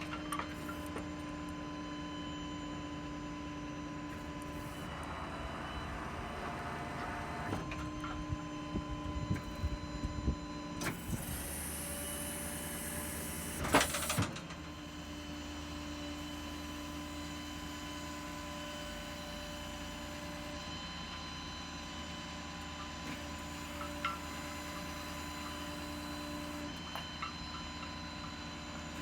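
Truck-mounted crane running while it handles a heavy surface grinder: a steady motor whine that stops and restarts several times, with a few clanks and one loud clatter about halfway through.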